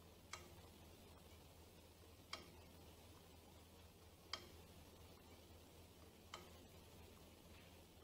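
A 1940s Synchronome master clock ticking: four single light clicks, one every two seconds, as the pendulum's pawl steps the toothed count wheel on one tooth at a time.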